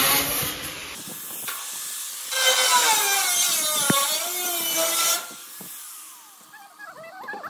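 Handheld angle grinder with a cutting disc cutting into thin sheet steel, its whine sagging in pitch as the disc bites. About five seconds in it stops cutting and winds down with a falling whine.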